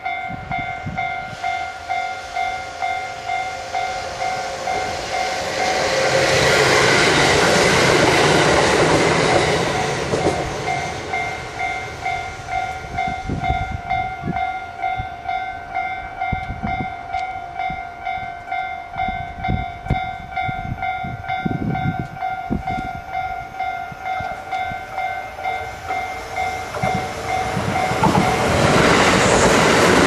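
Japanese level-crossing alarm ringing steadily, a repeating electronic ding about one and a half times a second. A rush of noise swells for a few seconds about a quarter of the way in. Near the end a Kintetsu electric train comes past close by, its running noise rising over the bell.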